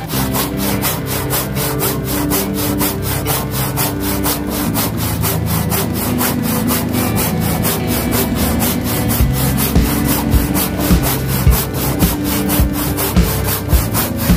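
Tjap Mata handsaw cutting through wood in continuous, rhythmic strokes, its teeth rasping through the board.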